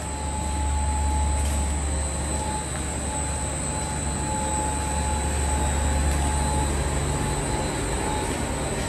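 A steady low rumble of a vehicle running, with faint higher tones that come and go.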